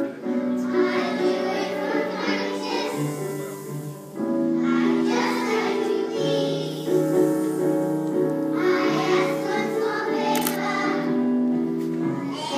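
A group of children singing a song from a stage musical, with sustained instrumental accompaniment beneath the voices.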